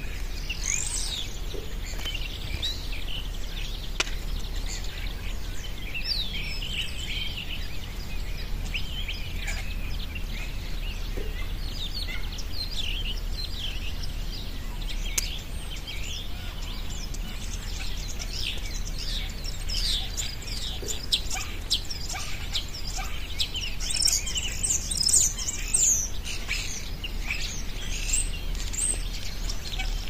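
Spring birdsong: several small songbirds chirping and singing in quick high notes, busiest about three quarters of the way through, over a steady low rumble.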